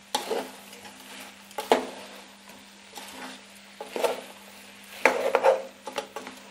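Wooden spatula stirring fried chicken pieces through thick masala in a pot: irregular scrapes and knocks against the pot, busiest about five seconds in, over a faint steady low hum.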